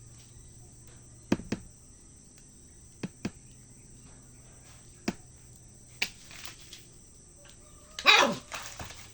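A puppy giving a few short, scattered yips, then a louder falling bark about eight seconds in: play barking, the puppy asking to be played with.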